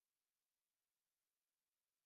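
Near silence: a faint steady digital hiss.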